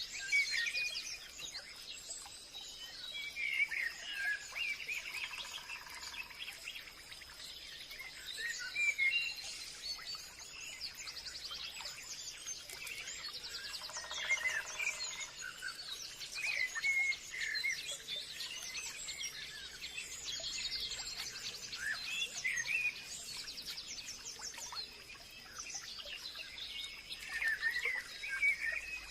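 Forest ambience: many birds chirping and trilling, one call after another, over a steady high insect drone. A lower, fuller call sounds twice, about six and fifteen seconds in.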